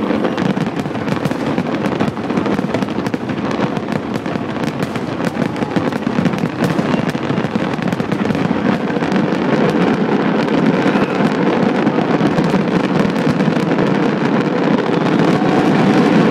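Fireworks crackling and popping in a dense, continuous barrage of rapid overlapping bangs, getting somewhat louder about halfway through.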